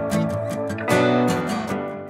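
Background music led by strummed guitar with a steady beat, fading out near the end.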